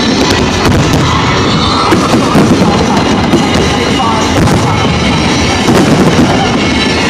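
Dense barrage of aerial fireworks, bangs and crackles overlapping with no pauses, with music playing underneath.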